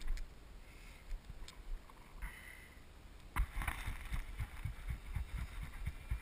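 Handling noise on the camera's microphone: rustles, clicks and low bumps, busier from about halfway through as the camera is moved.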